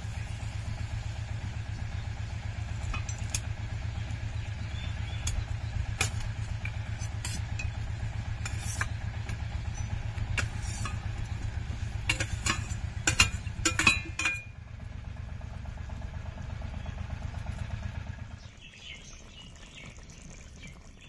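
A metal spoon clinks and scrapes against a cooking pan as fish pieces are added to a curry, with a quick cluster of sharp clinks about twelve to fourteen seconds in. Underneath is a steady low mechanical rumble, like an idling engine, that stops about eighteen seconds in.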